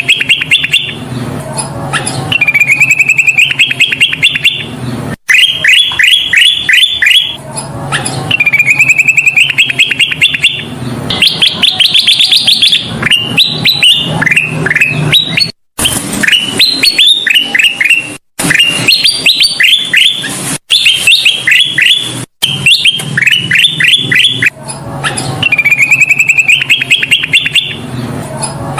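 Kutilang emas bulbul singing continuously in loud, repeated phrases: quick runs of short down-slurred whistled notes alternating with rising trills. The song breaks off for an instant several times, as if spliced.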